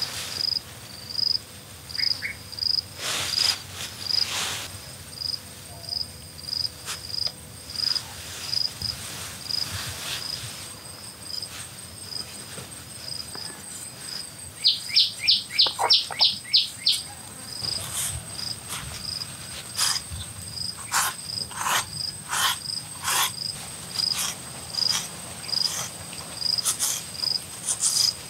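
Crickets chirping steadily, a regular high chirp about twice a second, with a steady high insect drone joining in. About halfway through comes a quick run of about eight falling notes, the loudest sound. Several sharp knocks are scattered through, with a run of them about two-thirds of the way in.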